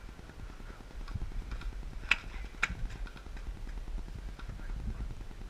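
Two sharp clicks about two seconds in, half a second apart, with a few fainter ticks over a low rumble.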